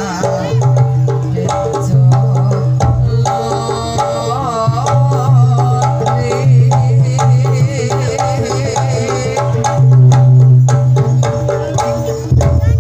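Live Javanese jaranan ensemble music accompanying a barongan dance: hand drums beat a driving rhythm under a wavering melodic line, with long deep low notes that come back over and over.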